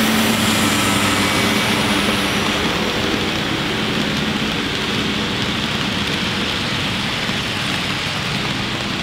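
Steady rumbling engine-like noise with a hiss, like a running train, with a low droning hum that is strongest in the first few seconds and then fades out.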